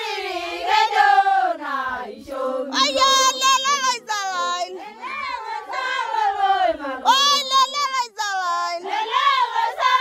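Singing: a high voice sliding between notes with a quavering tremble, over a steady, held lower note.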